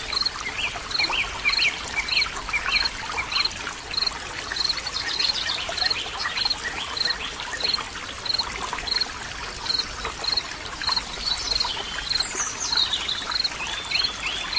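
Running water trickling steadily under birdsong: one bird repeats a short high chirp about every half second, while other birds add quick chirps near the start and again near the end.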